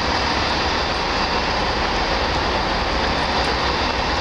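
Passenger train alongside a station platform, running with a steady, even noise and a constant low hum underneath.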